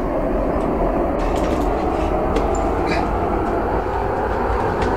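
Steady, dense rumbling drone of horror-film sound design, with a few faint clicks over it.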